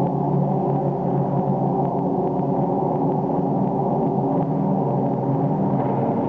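A steady, dense gong-like drone of many held tones, low and even throughout, with no beat.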